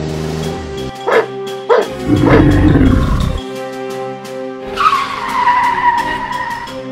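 Dog barking three times in quick succession over background music, followed by a loud low rumble, then a whistle-like tone that glides down and holds for about a second.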